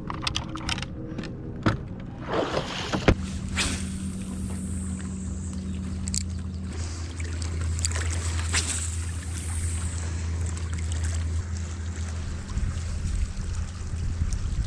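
A boat motor runs with a steady low hum that grows stronger about three seconds in. A few sharp knocks come in the first three seconds.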